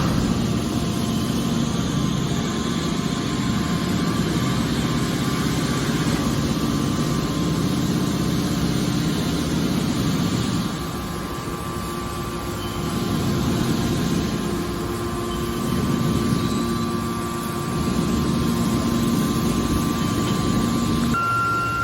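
Hydraulic scrap-car baler running: a loud, steady machine drone with a hum. It drops quieter about halfway through, then swells back up a few times.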